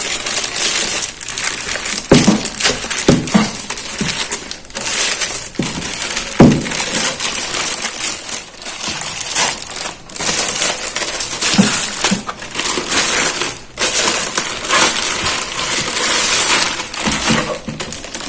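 Plastic wrapping crinkling and styrofoam packing crunching and rubbing as a subwoofer is pulled out of its box, in irregular bursts of rustling with sharp crackles.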